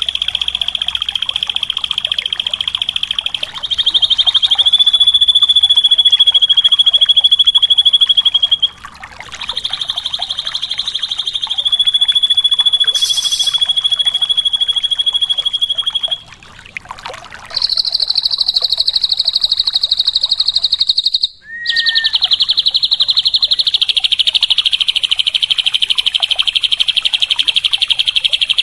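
Srigunting (drongo) singing in long, rapid buzzing trills, each held for several seconds, with abrupt breaks between them and a short whistled note after the last break.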